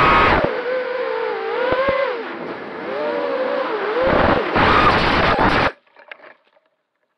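Emax RS2205 brushless motors and HQ 5040 tri-blade props of a ZMR-X210 FPV quadcopter, heard from its onboard camera, whining and gliding up and down in pitch with the throttle, with loud full-throttle blasts at the start and again from about four seconds in. The motor sound cuts off suddenly near six seconds as the quad hits a tree branch and stops, leaving only faint rustling of leaves.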